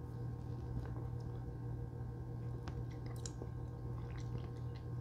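Quiet mouth sounds of a person tasting a sip of beer: faint lip smacks and small clicks scattered through, over a steady low hum.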